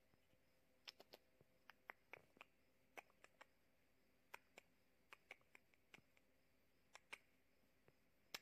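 Near silence: faint room tone with scattered, irregular soft clicks, about three a second.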